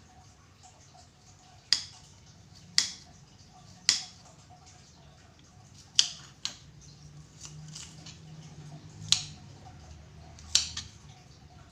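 Sharp clicks or knocks, about six at irregular intervals a second or two apart, each with a brief ringing tail, over faint steady background noise.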